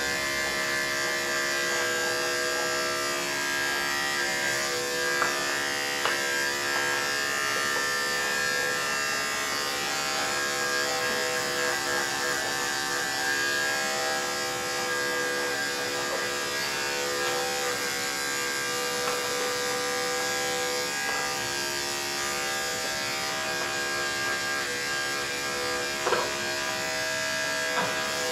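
Electric dog grooming clippers run steadily, a constant buzzing hum, as they shave the hair on a dog's ear.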